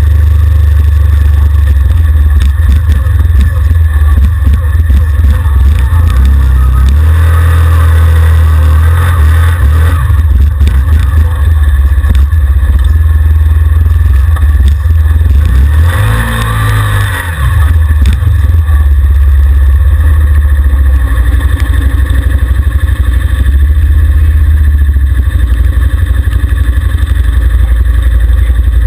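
ATV engine running under load on a muddy trail, rising and falling with the throttle, over a heavy, overloaded low rumble on the microphone. About sixteen seconds in, the engine note swells, then slides down as the level briefly dips.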